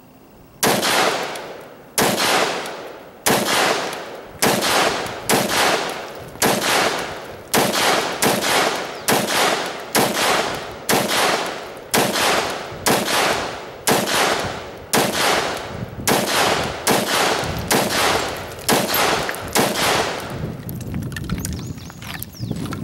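A SIG 556 rifle in 5.56 firing a 20-round magazine in slow, deliberate single shots, about one a second, each shot followed by a short tail of echo. The firing stops about twenty seconds in.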